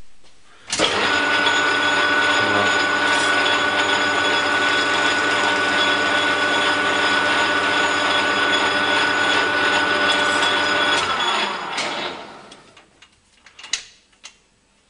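Metal lathe running with its three-jaw chuck spinning a PVC workpiece: it starts abruptly about a second in and runs steadily with a whine made of several steady tones. About 11 seconds in it is switched off and the whine drops in pitch as the spindle spins down.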